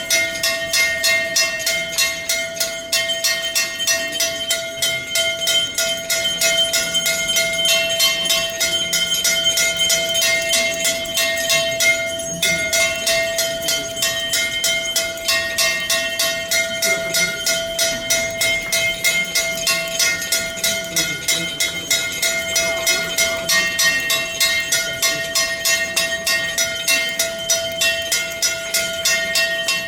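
Temple bells rung rapidly and without pause for harathi (aarti), about three strikes a second over a steady ringing tone.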